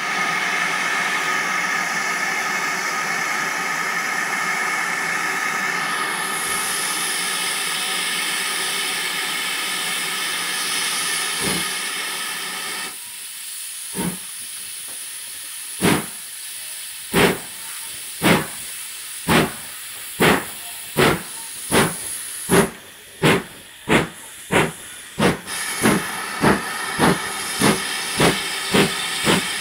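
Steam locomotive pulling away: a steady loud hiss of steam for about the first thirteen seconds, then exhaust chuffs that start about two seconds apart and quicken to about two a second as the train gathers speed.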